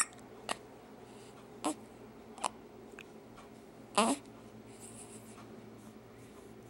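A run of hiccups: about five short, sharp hiccups at uneven intervals, the one about four seconds in carrying a brief voiced squeak.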